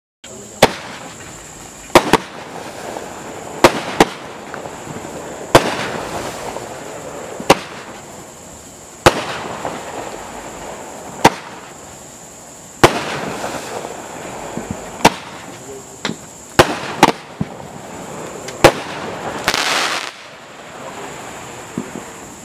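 An eight-shot consumer firework cake firing: sharp bangs roughly every one and a half to two seconds, some in close pairs, about fifteen in all, with a longer rush of noise just before the end.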